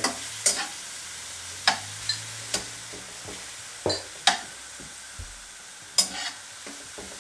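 Strips of beef sizzling in a nonstick wok over a high gas flame, stirred with a spatula that knocks and scrapes against the pan about seven times, sharply and irregularly.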